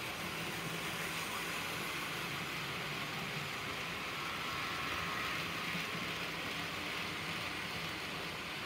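HO scale model train running along the track: a steady whir of the locomotive's small electric motor and metal wheels on the rails, a little louder around the middle as it passes close by.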